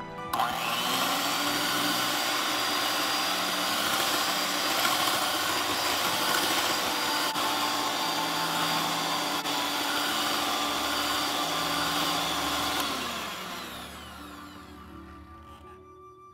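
Electric hand mixer with wire beaters running steadily, beating melted butter and sugar into a creamy batter. Its motor whine starts abruptly about half a second in, then drops in pitch and fades out over the last few seconds.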